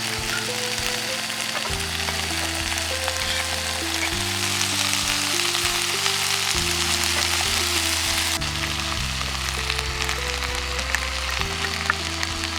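Food sizzling as it fries in a hot pan, a steady crackling hiss, over background music of slow, held low notes.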